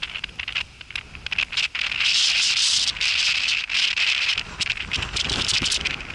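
Dry grass and brush rustling and crackling close to the microphone, an irregular run of crackles and scrapes that grows louder about two seconds in, with a few dull low thumps later on.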